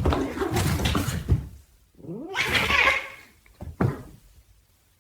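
A pet's vocal sounds: two loud, rough calls, the second gliding up and down in pitch, then two short sharp sounds before it falls quiet.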